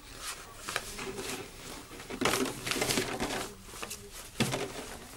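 Paper and thin cardboard crinkling and rustling in a baby's hands as it is scrunched and pulled about, in short irregular bursts that are loudest about two to three seconds in, with one sharper crackle a little after four seconds.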